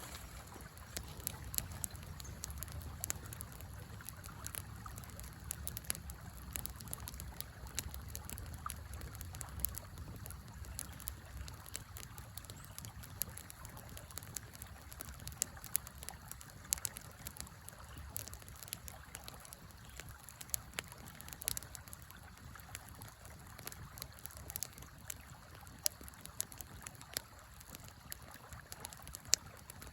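Wood fire crackling with frequent small sharp pops, over the steady low rush of a river.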